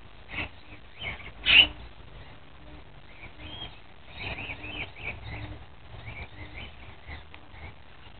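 Parrots giving scattered short chirps and squawks, with one much louder squawk about one and a half seconds in.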